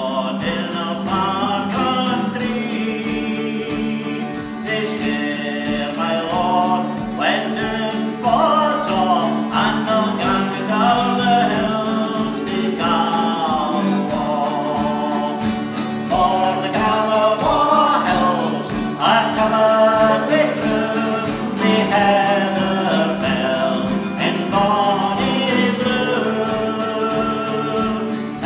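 Background music: a song with singing over a steady low drone.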